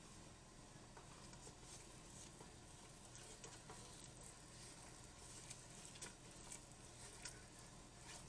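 Faint sizzle of a flour-and-vegetable-oil roux cooking in a hot pot as it is stirred, with a few light clicks of the stirring utensil.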